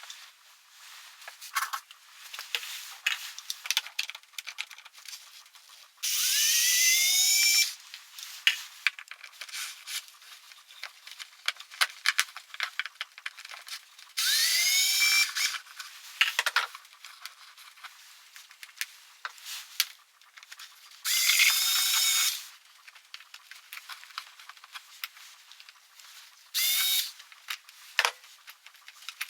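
Electric power drill whirring in four short runs of about a second and a half, each starting with a rising whine as it spins up. Between the runs come small clicks and clinks of hand tools and parts.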